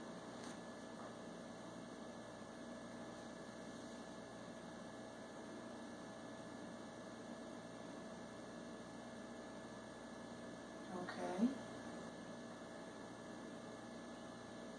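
Steady low electrical hum with a few fixed tones in a quiet room. About eleven seconds in there is one brief, short vocal sound with a slight upward glide.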